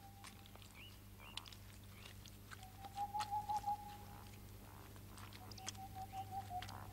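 Faint scattered ticks and soft rustles of a stick prodding at a mushy clump in grass, over a steady low hum. A faint held tone sounds twice, about three seconds in and again near the end.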